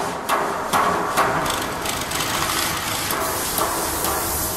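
A run of sharp knocks over a steady hiss of noise, the knocks coming close together in the first two seconds and a couple more later on.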